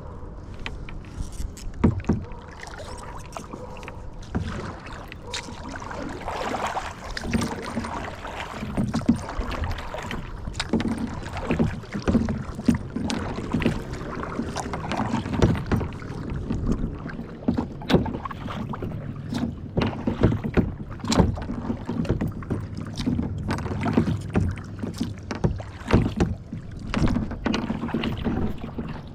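A kayak being paddled: paddle blades dipping and splashing in the water, with water sloshing against the hull and many irregular small knocks and splashes.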